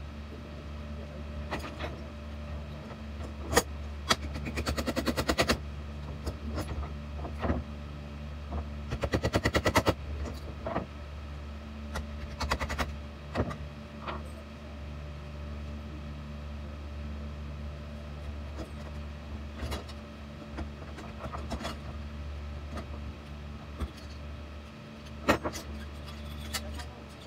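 Metal hand tools clicking and knocking against the metal parts of a Harken roller-furling drum, with two runs of rapid clicking in the first half, over a steady low shop hum. Playback is sped up.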